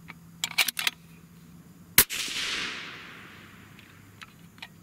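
One shot from a suppressed Savage 110 bolt-action rifle in .308 Winchester, firing a light 125-grain varmint handload, about two seconds in. It is a sharp crack followed by a rushing echo that fades over about a second and a half. A few light clicks come before it.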